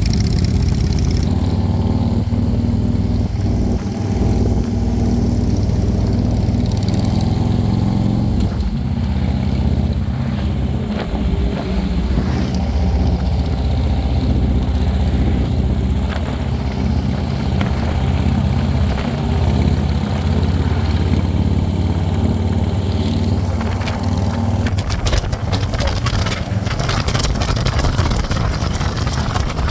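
Harley-Davidson motorcycle's V-twin engine running steadily while riding, with gusty wind noise on the microphone toward the end.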